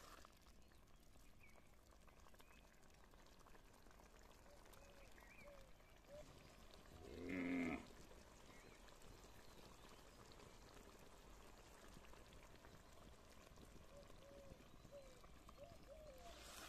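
A single bleat from a farm animal, about seven seconds in, over near silence with faint, scattered chirping.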